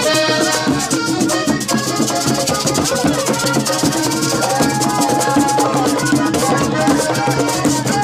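Live Panamanian música típica: an accordion plays a fast tune with sustained notes over hand drums and quick, scratchy high percussion.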